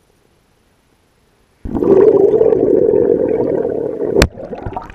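A firecracker set off underwater. About a second and a half in, its burning fuse starts a loud, steady rush of bubbling gas. A little after four seconds the firecracker goes off with one sharp crack, followed by a short fading churn of water.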